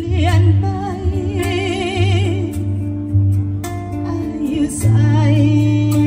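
Music played over the stage loudspeakers for a dance performance: a voice holds long notes with a wide vibrato over a deep, steady bass and held chords.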